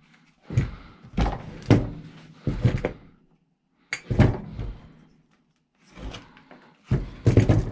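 Chainsaw parts and tools being handled and set down on a workbench during dismantling: about six bouts of knocks and clatter with short pauses between them.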